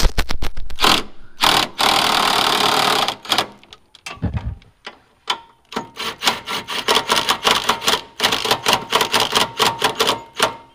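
Cordless drill spinning a socket on a rear suspension bolt: a steady run of about a second and a half near the start, then, after a short pause, a long stretch of fast, rattling clicks in the second half.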